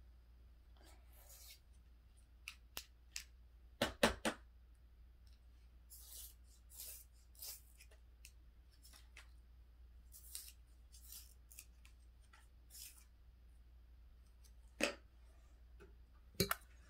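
Marker tip scratching across paper in short colouring strokes, with several sharp clicks and taps on the table, the loudest a cluster about four seconds in.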